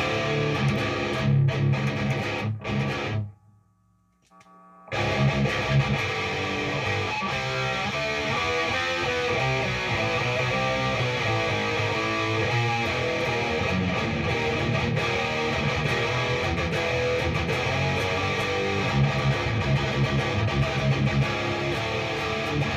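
Electric guitar, a 1993 ESP Horizon Custom, playing heavy distorted metal riffs through a high-gain Peavey tube amp head. It stops about three seconds in, pauses for about two seconds, then starts again and keeps going.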